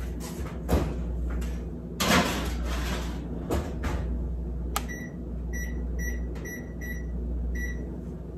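Oven door and baking sheet handling, a few knocks and rattles as the tray goes into an electric range, followed by a click and about six short electronic beeps as the oven's keypad is pressed to set it.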